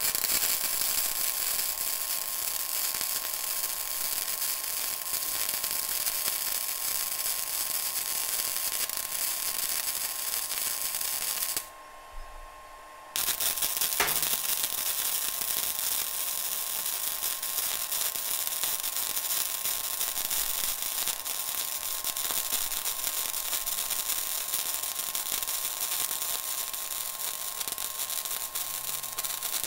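Flux-core wire welder arc crackling steadily as a continuous bead is run along the seam of a sheet-metal patch plate. The arc stops for about a second and a half just before twelve seconds in, then starts again and runs on.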